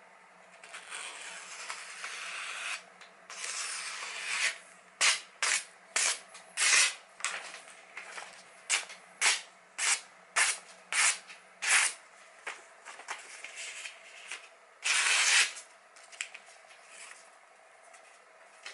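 Freshly sharpened kitchen knife slicing through a sheet of printed paper, a paper test of its edge. Two longer slicing hisses come first, then about a dozen quick short slices, and one more longer cut about fifteen seconds in, with the paper rustling in between.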